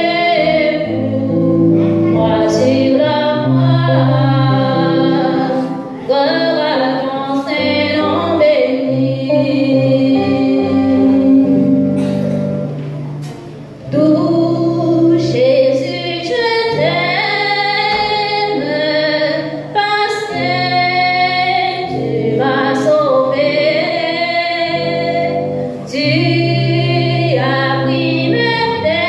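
A woman singing a French gospel hymn over accompanying music with sustained bass notes. The singing breaks off briefly about halfway through, then resumes.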